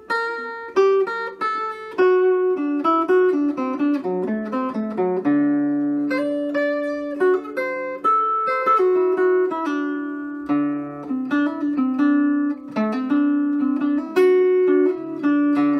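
Epiphone Masterbilt Century Zenith archtop guitar played through its newly fitted DeArmond Rhythm Chief 1100 floating pickup, with volume full up and tone rolled to about 2 o'clock: a continuous run of picked single notes mixed with short chords, some notes left to ring for about a second.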